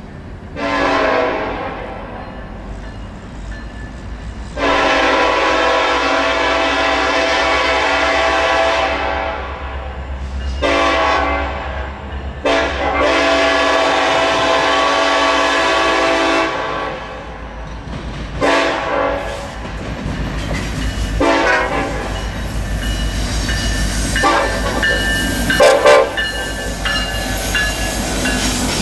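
Norfolk Southern SD70ACe diesel locomotive's multi-chime horn sounding long, long, short, long for the crossing as the train approaches, then a couple of brief toots. From about 20 seconds in, the locomotives' diesel engines rumble past close by, with wheels clattering and knocking over the rails and a faint high wheel squeal.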